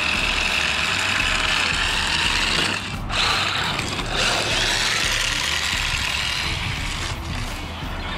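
Traxxas Rustler 4x4 VXL RC car driving on hard 3D-printed plastic drift tires: a continuous rattling, grinding scrape of the plastic tires sliding on asphalt, mixed with drivetrain noise. It dips briefly about three seconds in and again near seven seconds.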